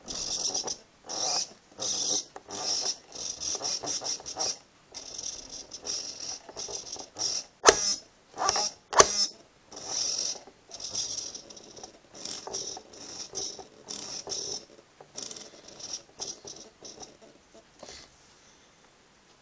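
Hobby RC servo driving a pencil holder, its gears whirring in short repeated bursts as it swings back and forth; the bursts turn fainter and shorter in the last few seconds. Two sharp clicks about a second apart stand out midway.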